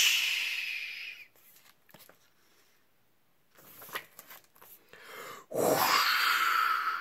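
A person blowing a long whooshing breath to imitate a gust of wind, fading out about a second in. Faint paper rustling and clicks follow as a book page is turned. Near the end comes a second blown whoosh with a faint whistling tone in it.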